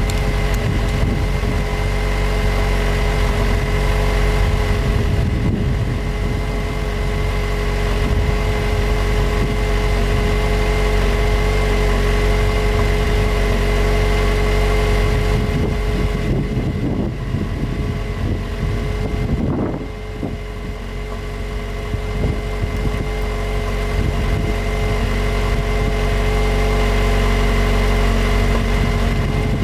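A 2020 Jeep Wrangler JL's 2.0-litre turbo four-cylinder idling steadily through its exhaust, dipping briefly in loudness about two-thirds of the way through.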